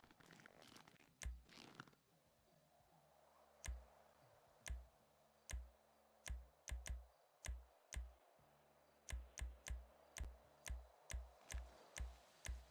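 Faint, irregular sharp clicks, each with a dull thump beneath it, at first about a second apart and then coming faster in the second half, over near silence.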